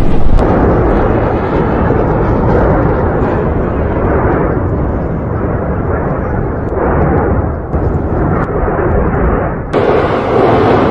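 Loud, continuous roar and rumble of an erupting volcano, cutting abruptly between different takes several times.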